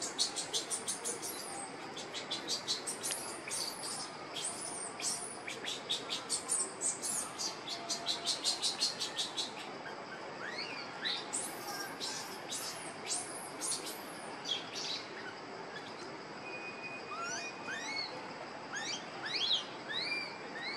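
High-pitched animal chirping in fast runs for about the first half, then scattered short squeaks that sweep upward in pitch, with a cluster of them near the end.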